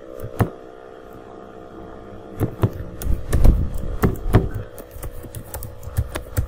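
Computer keyboard keystrokes as code is typed: a single keystroke about half a second in, then an irregular run of key clicks from about two and a half seconds to near the end. A steady low hum runs underneath.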